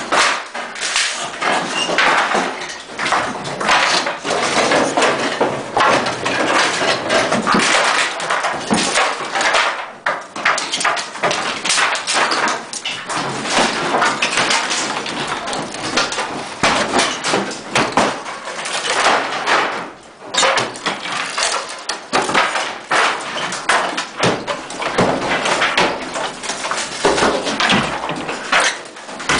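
Interior demolition racket: a dense, continuous jumble of knocks, bangs and scraping from hand tools hammering and prying out walls, with debris falling.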